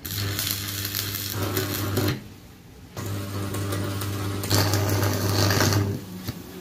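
Electric arc welding on a steel rolling-shutter pipe: the arc crackles and buzzes over a steady low hum, in two runs, one of about two seconds, then after a pause of about a second another of about three seconds.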